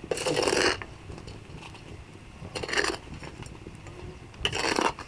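Corn cobs being rolled over in a pan of dark roasting grit: three short, gritty scrapes, one near the start, one a little before the middle and one near the end.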